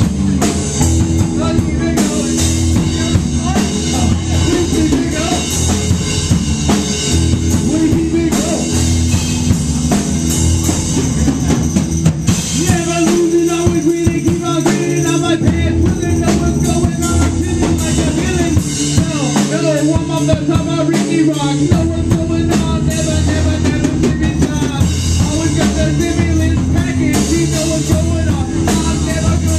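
Live rock band playing: drum kit beating a steady rhythm under a repeating bass guitar line, with a vocalist singing into a handheld microphone over it.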